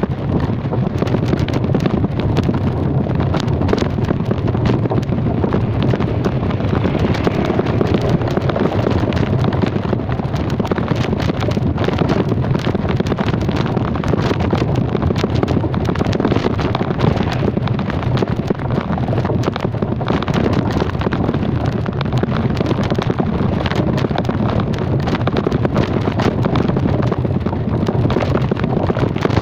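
Wind buffeting the microphone while riding an open vehicle, with a steady low engine and road noise beneath; it runs on without a break.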